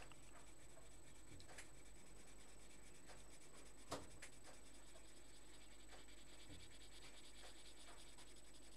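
Faint scratching of a colored pencil shading on paper in quick back-and-forth strokes, growing denser over the last few seconds, with one sharp tap about four seconds in.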